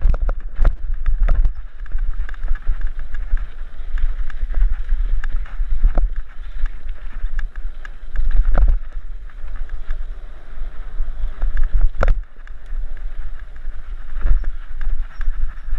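Mountain bike riding fast down a dirt singletrack, heard from a helmet camera: wind buffets the microphone in a heavy rumble over the steady rush of tyres on dirt, and the bike rattles and knocks sharply over bumps every few seconds.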